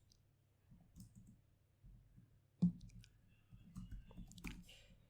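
Soft, scattered clicks of a computer keyboard and mouse. One sharper click comes about two and a half seconds in, then a quick run of clicks from about three and a half seconds.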